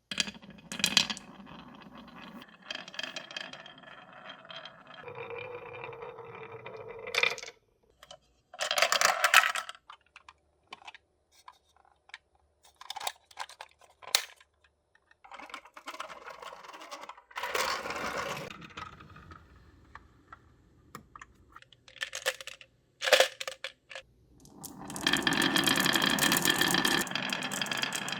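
Marbles rolling and clattering down a HABA wooden marble run, with stretches of rolling rattle broken by sharp clicks and clacks as they drop and hit the track pieces. A longer, louder rolling rattle comes near the end.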